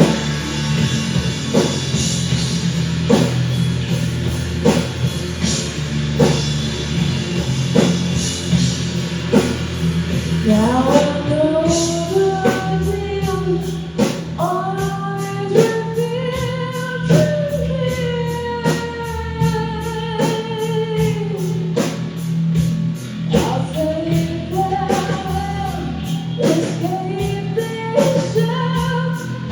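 Live rock band playing: a steady drum beat over a held low bass drone, with a voice starting to sing about ten seconds in, sliding between long notes.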